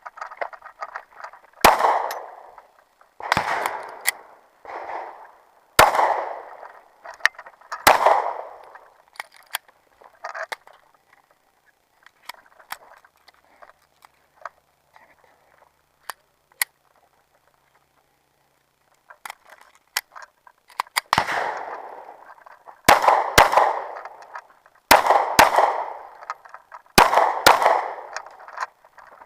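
Handgun shots fired in a timed competition string, each with a short echo. About six shots come spaced out over the first eight seconds, then a long pause with only faint clicks, then a quick run of shots, mostly in pairs, from about 21 seconds on.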